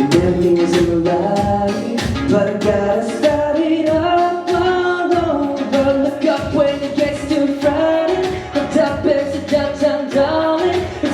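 A pop song performed with a singing voice over an instrumental backing with a steady drum beat.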